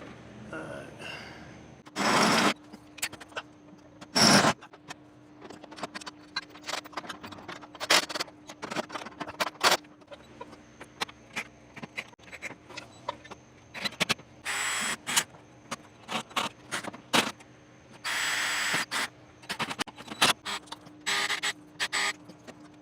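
A cordless drill driving screws into a metal mounting bracket in several short bursts, each under a second. Clicks and clatter of handling the tool and screws come between the bursts.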